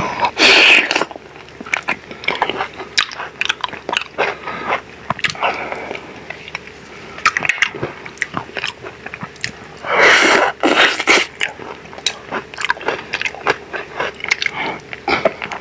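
Close-up eating sounds of chocolate-coated mango: two loud crunching bites through the chocolate shell, one at the start and one about ten seconds in, with chewing and many small sharp mouth clicks between them.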